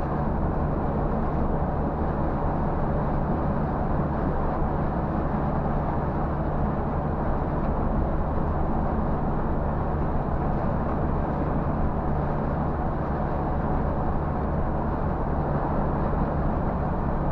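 Scania coach's diesel engine and tyre road noise droning steadily inside the driver's cab, cruising at about 90 km/h on the highway.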